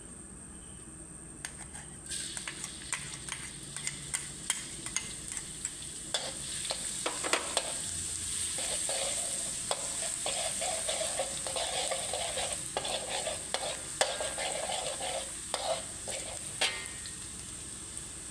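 Minced garlic sizzling as it fries in hot oil in an aluminium wok, the sizzle starting suddenly about two seconds in. A metal spatula stirs and scrapes against the wok throughout, with many sharp clicks.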